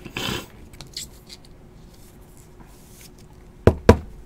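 Trading cards and clear plastic card holders being handled: a short sliding rustle at the start, a few faint ticks, then two sharp plastic clacks in quick succession near the end.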